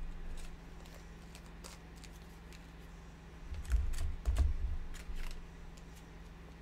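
Light plastic clicks and taps, with a cluster of dull knocks a little past the middle, from handling small ink and spray bottles on the worktable while ink is dropped into a spray bottle.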